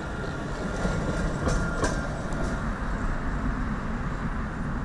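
Light-rail tram running past on its rails: a steady rumble of wheels on track, with a few sharp clacks about one and a half to two seconds in.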